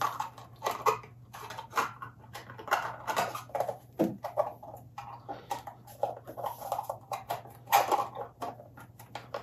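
Irregular light clicks and rustling as a 3D-printed plastic display enclosure and its wiring are handled and pressed into place.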